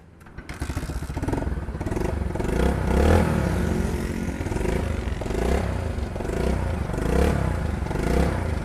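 Bajaj Discover 135 single-cylinder four-stroke motorcycle engine starting about half a second in, then running with the throttle blipped repeatedly. The engine has just been rebuilt after water got in and seized it, and runs with what the mechanic calls a refined sound, with no tappet noise.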